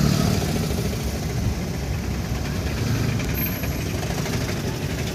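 Motor vehicle engine running steadily with road noise, heard from a vehicle moving along a street.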